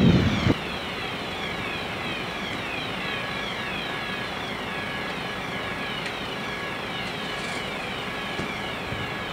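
Fire engines running at the scene: a loud low rumble for the first half-second cuts off abruptly, then a steady running noise continues with a high whine that falls in pitch over and over, several times a second.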